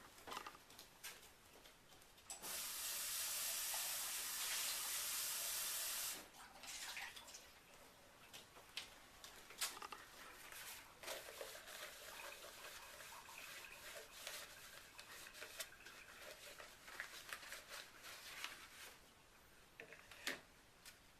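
Tap running into a sink for about four seconds to rinse something out, starting a couple of seconds in and cutting off sharply. Scattered light clicks and knocks of handling come before and after.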